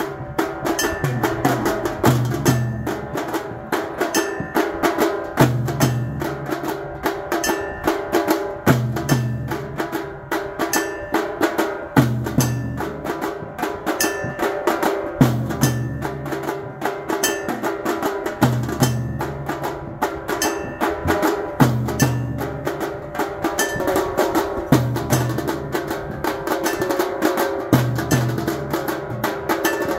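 Temple aarti music: a low drum pattern repeating about every three seconds under dense, rapid percussion strokes, with some steady ringing tones.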